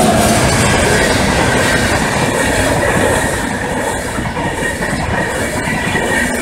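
Passenger coaches of an electric-hauled intercity train rolling past over a level crossing: a steady loud rumble with wheels clattering over the rails and a faint high wheel squeal.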